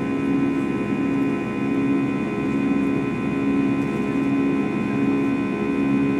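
Airbus A320's turbofan engines running steadily in the climb, heard from inside the cabin by the wing. A constant drone holds several fixed whining tones over a low hum that swells and fades about once a second.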